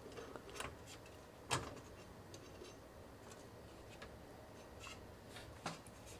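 Faint, scattered light clicks and taps, the loudest about a second and a half in and another near the end: small handling noises as a CPU air cooler is held in place for a trial fit.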